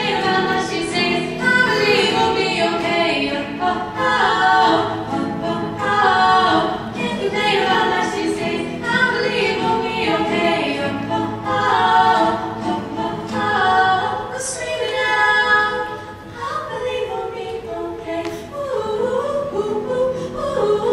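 Two female voices singing a pop song together in harmony.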